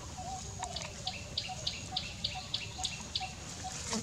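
A bird calling a rapid series of short, high notes, about three to four a second, for a couple of seconds. A steady high insect drone and a lower repeated note from another creature run underneath.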